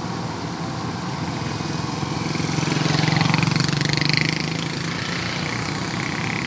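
Heavy diesel engine idling steadily, with a motorcycle engine swelling in as it passes close, loudest about three to four seconds in, then fading.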